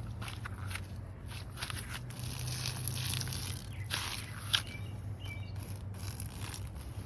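Outdoor ambience of irregular rustling and crackling clicks, with a sharper click about four and a half seconds in, a few faint short bird chirps and a steady low hum underneath.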